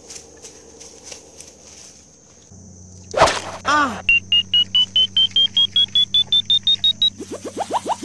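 Comic sound effects: a sudden whoosh with falling tones, then a run of quick beeps, about five a second, climbing steadily in pitch for about three seconds, ending in a few faster rising chirps.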